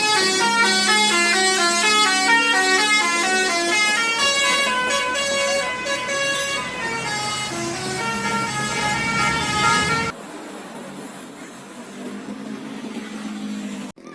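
Bus telolet horn, a Basuri multi-tone air horn, playing a fast melody of quick stepping notes. It cuts off suddenly about ten seconds in, leaving a quieter background hum.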